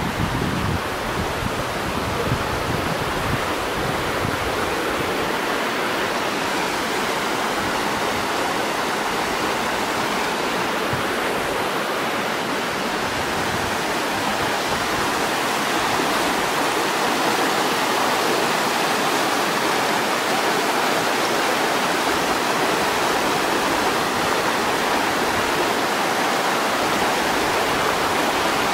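Brook at the head of the Řezná river flowing steadily, a continuous even rush of water.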